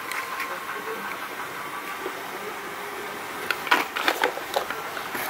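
Cardboard shipping box and small product cartons being handled: a short cluster of crackling knocks and rustles about three and a half seconds in, over a steady hiss.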